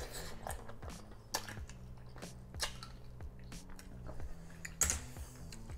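Close-miked chewing and wet mouth sounds of someone eating grilled cockles, with irregular sharp clicks and smacks.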